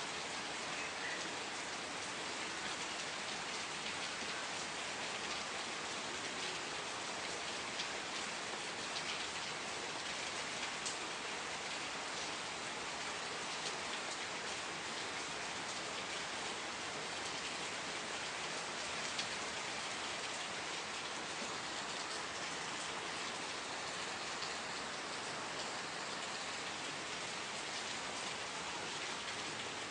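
Steady rain falling on surfaces, an even hiss with scattered small drop ticks throughout.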